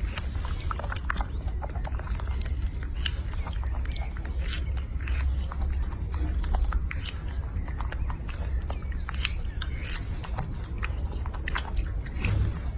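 An animal chewing crunchy food, with many irregular crisp crunches over a low rumble.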